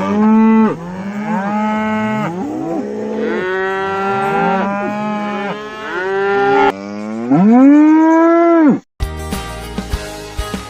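Cattle mooing: a run of overlapping moos at different pitches, then one long loud moo that rises in pitch and holds. It cuts off suddenly near the end, and strummed guitar music starts.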